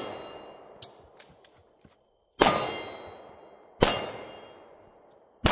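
Pistol shots striking steel targets, each shot followed by the steel plate ringing as it fades. There are two single shots about a second and a half apart, then a third right at the end.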